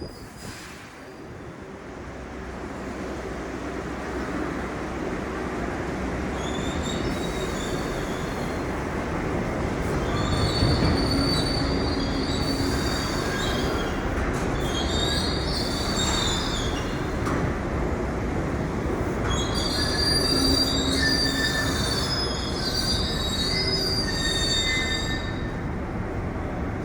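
New York City subway S shuttle train pulling into the station: a steady rumble of wheels on rail builds after about a second, with high-pitched wheel squeal coming in several stretches as it runs in.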